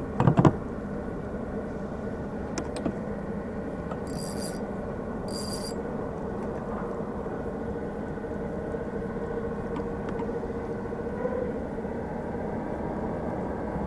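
Steady low rumble of traffic, with a few knocks in the first half second and two short high-pitched bursts at about four and five and a half seconds in.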